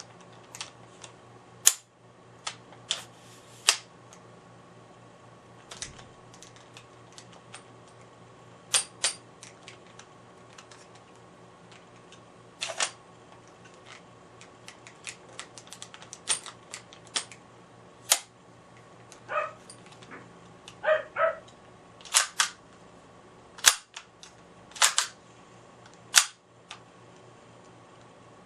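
Irregular sharp clicks and clacks from a Maruzen Ingram M11 gas-blowback airsoft submachine gun being worked by hand, some loud, most faint, spaced unevenly with no rapid-fire burst. A few short squeaky sounds come about two-thirds of the way through.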